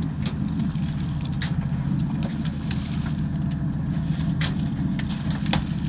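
Sportfishing boat's engine running with a steady low drone, with a few sharp clicks and knocks over it.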